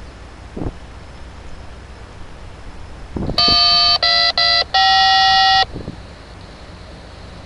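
Touch-tone (DTMF) signalling beeps over a railroad radio scanner. About three and a half seconds in come four beeps: one, two short ones, then a longer last one. Each is a steady pair of tones, and the pitch changes from beep to beep.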